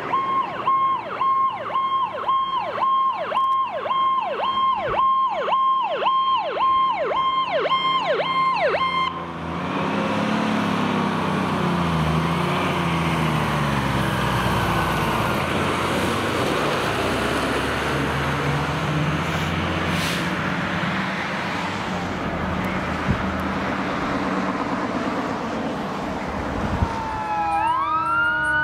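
Fire truck's electronic siren on a fast repeating cycle, a steady tone that dips sharply and comes back about twice a second. After about nine seconds it stops, leaving the truck's engine and road noise with low gliding tones. Near the end a rising siren wail starts.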